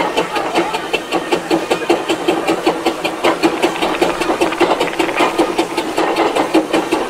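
Steam roller's engine running as it moves slowly, a rapid, even beat of chuffs and mechanical clatter over a hiss of steam.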